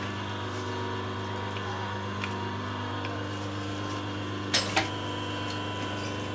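Bottle-cap molding machine running, its electric motor giving a steady hum with a few faint ticks. About four and a half seconds in comes a sharp double clunk from the machine.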